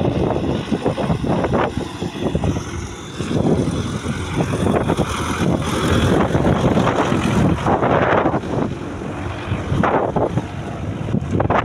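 Wind buffeting the microphone in uneven gusts, over a farm tractor's engine as the tractor passes close by and pulls away.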